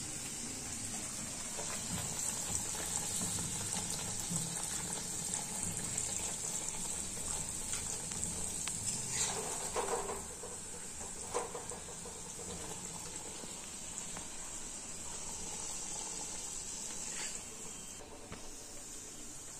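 Hot oil sizzling steadily in an iron kadai as a puri deep-fries, with a few sharp clicks of the steel spatula against the pan around the middle and near the end.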